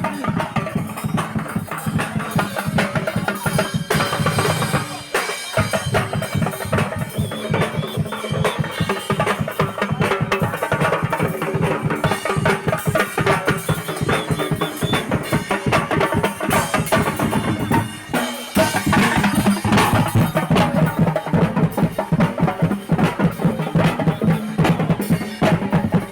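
Loud, drum-heavy music with a fast, dense beat of drum strokes, breaking off briefly twice, about five seconds in and again about eighteen seconds in.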